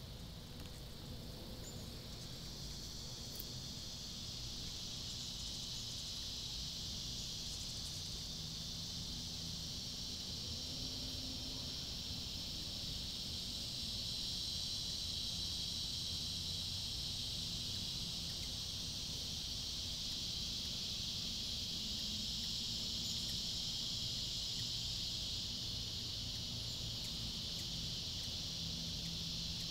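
A steady, high-pitched insect chorus buzzing without a break, swelling over the first few seconds and then holding level.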